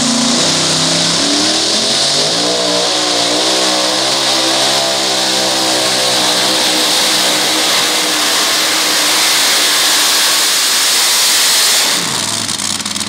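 Supercharged engine of a two-wheel-drive pulling truck running at full throttle while dragging the sled. Its pitch climbs over the first few seconds and then holds high. About a second before the end the engine is throttled down at the end of a full pull, and the sound falls away sharply.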